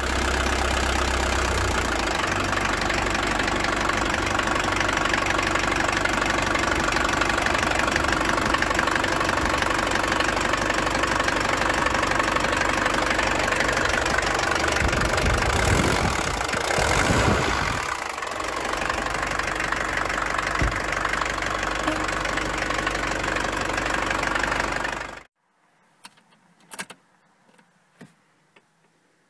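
Mercedes-Benz 200D four-cylinder diesel engine running at idle, rising and falling briefly about 16 seconds in. It cuts off suddenly about 25 seconds in, leaving only a few faint clicks.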